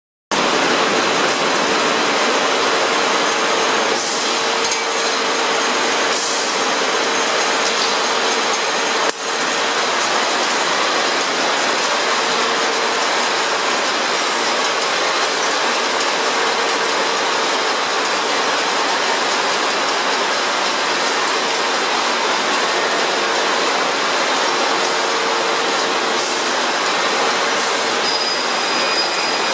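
Steady, loud machinery noise of a copper-clad aluminium busbar production line running, its motors and roller conveyor giving an even din with a faint steady hum. A few short clicks sound, around four, six and nine seconds in.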